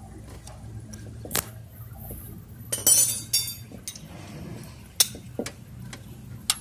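Metal hand tools clinking and rattling as they are handled: single sharp clinks and a short rattling cluster about three seconds in, over a low steady hum.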